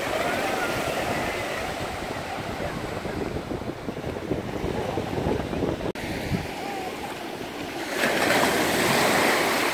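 Small sea waves breaking and washing up over a sandy beach, a steady rush of surf that grows louder from about eight seconds in.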